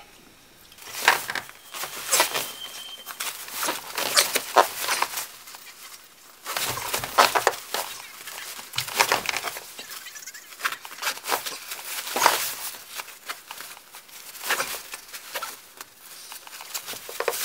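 Synthetic sleeping bag rustling in irregular bursts as a person shifts and settles inside it.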